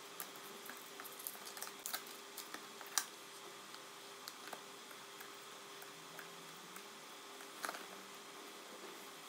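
Scissors cutting open a paper envelope, then the paper being pulled out and handled: scattered soft snips, crinkles and taps, the loudest about three seconds in and another small cluster near the end. A faint steady hum runs underneath.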